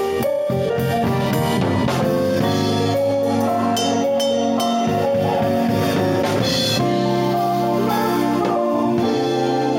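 Keyboard ensemble playing a jazz-fusion piece, several keyboards holding chords and lines over a steady drum beat.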